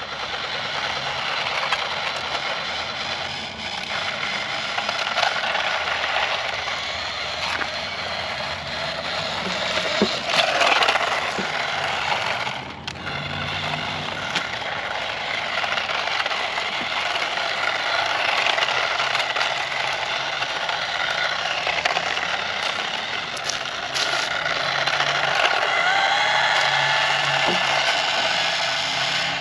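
Toy RC cars driving over rough ground. Their wheels scrape and crackle steadily, and small electric motors give a faint whine that rises and falls, clearest near the end.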